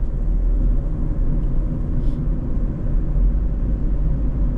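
Steady low rumble of the Mazda Roadster RF's four-cylinder engine and road noise while driving.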